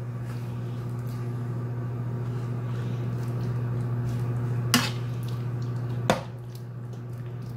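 Steady low electrical hum from an electric cooktop heating a frying pan of squid in water. A metal spoon stirs the pan and clinks sharply against it twice near the end.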